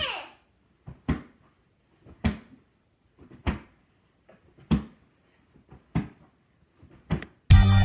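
A couch cushion thudding down on a person's back over and over, seven blows a little over a second apart, each with a short swish as it swings. Loud music starts suddenly just before the end.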